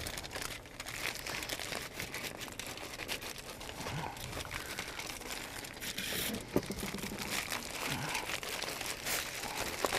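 Aluminium foil crinkling and crackling continuously as it is rolled and pressed snugly around a sandwich.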